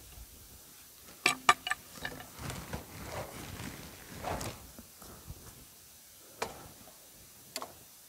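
Scattered knocks and scuffs of a log being handled with a cant hook on a portable sawmill's bed, with footsteps. Three sharp knocks come close together about a second in, and two single knocks come near the end.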